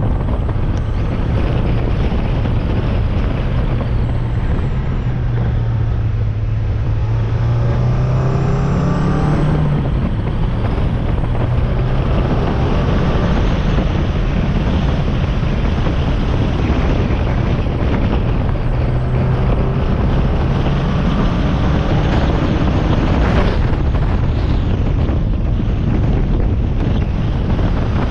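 Mazda MX-5 NB's four-cylinder engine and K&N-filtered intake heard from the bonnet while driving, with wind rushing over the microphone. The engine note climbs, drops sharply about ten seconds in, then climbs again later on.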